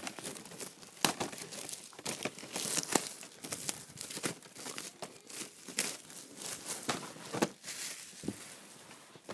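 Plastic shrink wrap being torn and peeled off a Pokémon trading card box: irregular crinkling, crackling and tearing of thin plastic film.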